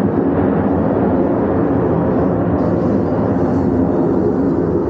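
Loud, steady jet engine noise from Blue Angels F/A-18 Super Hornets flying a display overhead, with no breaks or changes.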